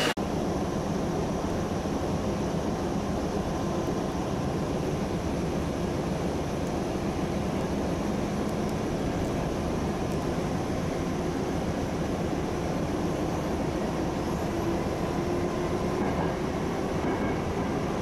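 Sanyo Electric Railway train running, a steady rail and running noise, with a low whine slowly rising in pitch near the end.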